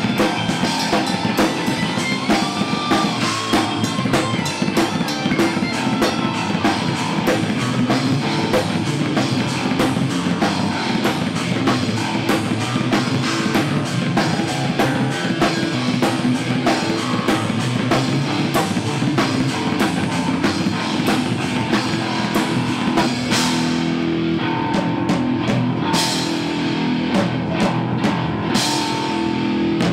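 Metal band playing live: distorted electric guitar and bass over a drum kit hit hard and fast, with a few cymbal crashes in the last few seconds.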